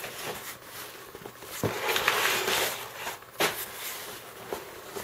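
Hands rustling and scraping through packing paper and cardboard inside a shipping box, with a couple of soft knocks as the box is handled.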